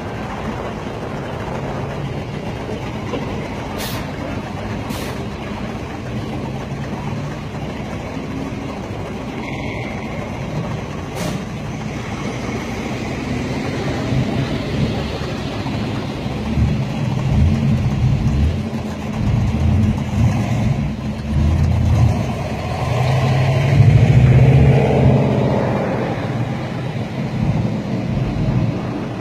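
Pontiac Trans Ams and Firebirds rolling slowly past in a line, their engines rumbling. In the second half several cars pass close one after another, each swelling the engine sound, the loudest a little past three-quarters of the way through.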